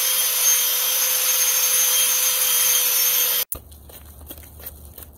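Angle grinder with an abrasive disc grinding a concrete edge: a steady, loud, high-pitched grinding whine that cuts off suddenly about three and a half seconds in. After it, faint scraping and clicks of mortar being stirred in a plastic bucket.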